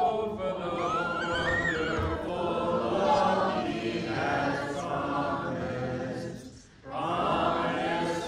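A church congregation singing a hymn together, unaccompanied voices. They pause briefly for breath between phrases about two-thirds of the way through.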